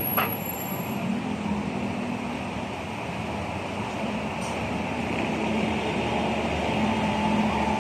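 Busy city street traffic: vehicle engines running and cars and a bus passing over a steady wash of road noise, with one brief sharp sound just after the start.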